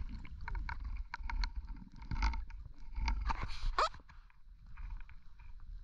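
Irregular small clicks and knocks picked up underwater, with a short rising squeak a little under four seconds in.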